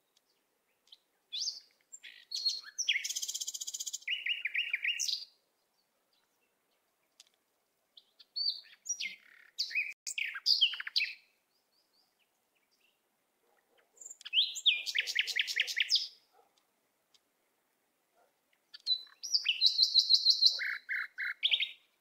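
Bird song: four phrases of high chirps and fast trills, each a few seconds long, with quiet gaps between them.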